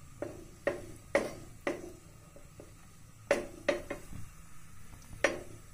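Upside-down metal tawa clinking and knocking against the gas burner's pan support about eight times, at uneven intervals, as it is lifted and set back down over the flame to roast the roti stuck to it.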